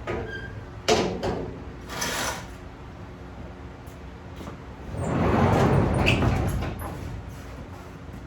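Workshop handling noises: a few sharp knocks and clatters, then a longer sliding, scraping noise about five seconds in, over a faint steady low hum.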